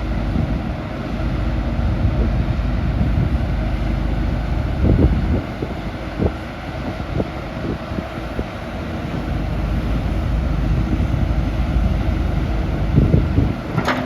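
Caterpillar 312D L excavator's diesel engine running steadily, with wind buffeting the microphone and a few short knocks, most of them near the end.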